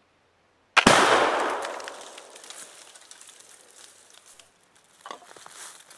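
A single loud shot from a .62 caliber smoothbore flintlock fusil de chasse about a second in, its echo rolling away over the next few seconds. Faint crackles come near the end.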